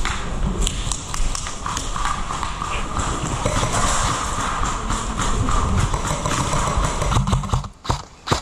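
Footsteps on a concrete floor scattered with rubble, with gear and clothing rustling close by. The sound drops away briefly near the end.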